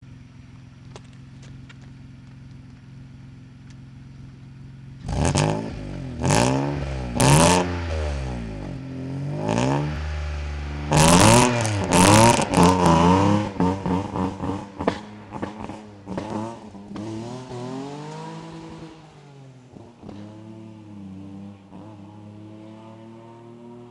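Opel Vectra V6 exhaust idling, then revved hard in several blips starting about five seconds in. The car then pulls away, its engine note rising as it accelerates and fading into the distance.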